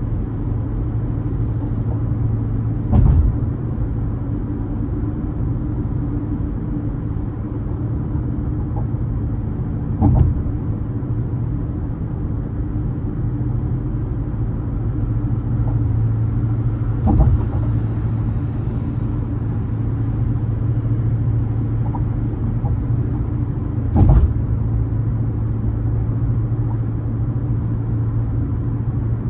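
Car driving on the road: a steady low rumble of engine and road noise, with four short thumps evenly spaced about seven seconds apart.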